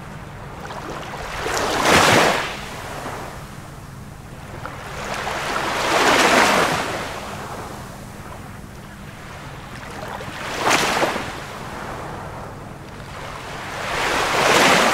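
Ocean waves surging and washing in, four swells about four seconds apart, each rising to a peak and fading, over a faint low steady hum.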